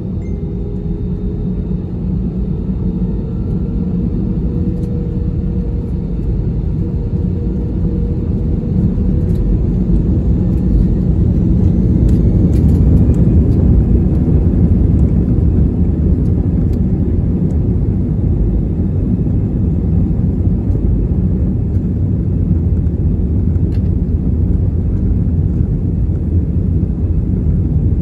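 Jet airliner rolling on the ground, its engines and wheels making a steady low rumble heard from inside the cabin. The rumble grows louder over the first half, then holds.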